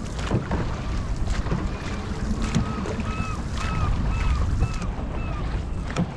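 Dragon boat paddles pulling through the water in time, about one stroke a second, over wind rumbling on the microphone. Through the middle comes a run of short high squeaks, about two a second.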